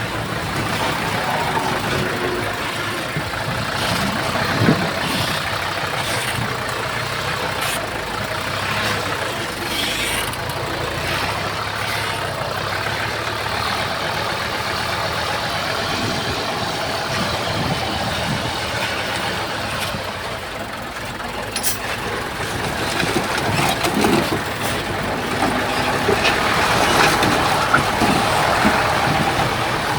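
Heavy diesel earthmoving machinery running steadily, with scattered clanks, getting a little louder in the last several seconds.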